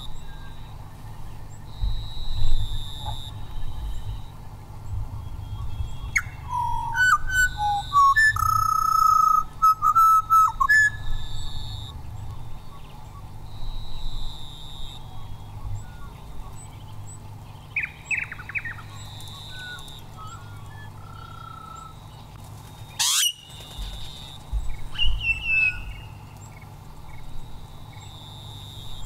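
Birds singing in open outback scrub: short whistled notes repeated again and again, with a louder run of varied, gliding warbled notes from about six to eleven seconds in. A low rumble runs underneath, and there is a brief sharp sound a little past the twenty-second mark.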